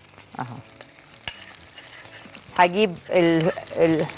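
Spoon stirring a glaze of ketchup, soy sauce and honey in a ceramic plate: faint, steady scraping and swishing, with one sharp click about a second in.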